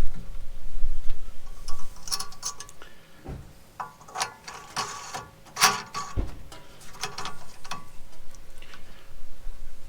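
Metal clinks and ratchet-like clicking in several short bursts as the steel upright section of a homemade bike rack is fitted onto the tow bar.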